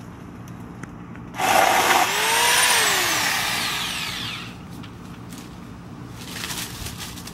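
Electric pole chainsaw, corded, switched on with a sudden burst about a second and a half in and run briefly. After release its motor winds down over about two seconds, the pitch falling.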